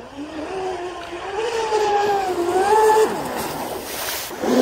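Deltaforce 35 RC speedboat's motor whining at speed as the boat runs past on the water. The pitch climbs over the first second or so, wavers, then falls away about three seconds in, over a faint hiss of water.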